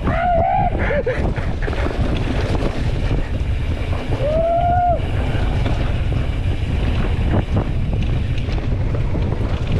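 Heavy wind buffeting the microphone over a steady low rumble, with a short voice-like call about four seconds in.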